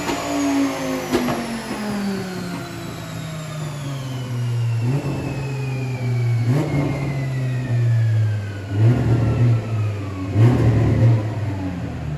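Twin-turbo V10 of a second-generation Audi R8 on a chassis dyno, winding down after a pull. The engine note falls in pitch over about four seconds with a high whine sliding down alongside, then settles low with several rough bursts of noise.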